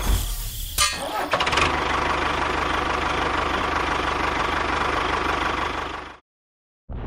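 Tractor engine running steadily with a regular low chug, with a few sharp knocks in the first second and a half. It cuts off abruptly about six seconds in, and after a short silence a boom begins right at the end.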